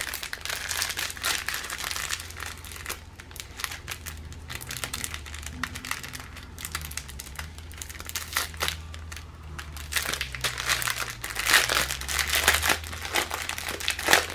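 Plastic packaging and small bags crinkling and rustling as they are handled and opened, in irregular bursts that get busier and louder near the end.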